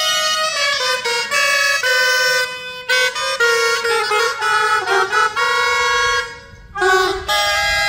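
Several gralles, Catalan double-reed shawms, playing a loud, reedy melody together, with a brief break between phrases about six seconds in.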